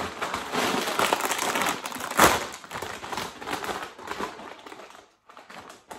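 A large plastic crisp packet being pulled open and handled, crinkling and crackling, with a sharp pop about two seconds in. The crinkling dies away after about four seconds.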